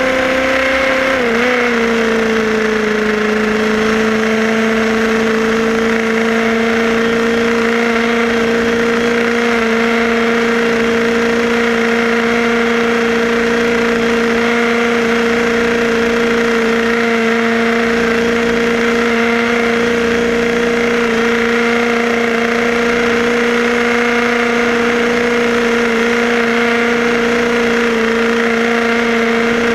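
Small electric motor and gears of a Tamiya model car whining steadily at speed, heard from a camera riding on the car, over a hiss of noise. The pitch dips briefly about a second in, then settles a little lower and holds.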